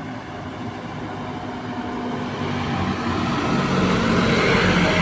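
Bus approaching along the road, its engine and tyre noise growing steadily louder.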